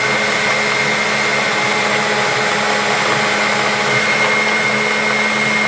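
Bosch 450 W stand mixer running at a steady speed, its beaters whisking egg batter in the bowl: an even motor whine that holds one pitch.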